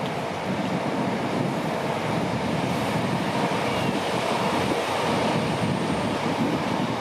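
A passenger train running along the seafront railway: a steady rumbling noise, mixed with the hiss of surf and wind.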